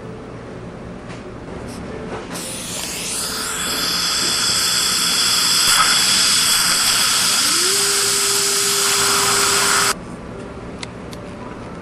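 Dental drill running with a high-pitched whine and hiss. It starts about two seconds in and cuts off abruptly about ten seconds in.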